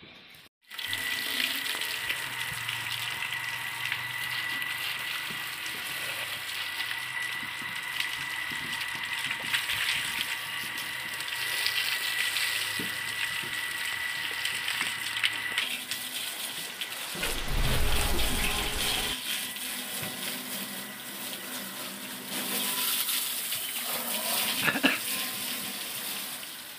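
Water from a garden hose spraying onto the steel boom and body of an excavator: a steady hiss and splash that starts about half a second in. A brief low rumble about seventeen seconds in.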